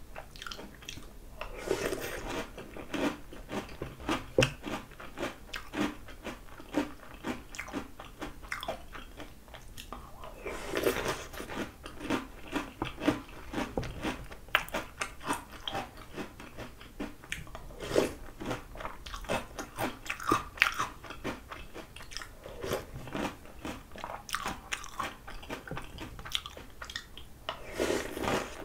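Chewing and crunching of Oreo O's chocolate cereal rings in milk, eaten by the spoonful: a dense run of crisp crunches with louder stretches every few seconds.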